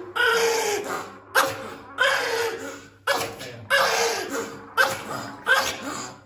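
Pomeranian barking: a string of about nine sharp, pitched barks at uneven intervals of half a second to a second, each echoing off the hard walls of a bathroom.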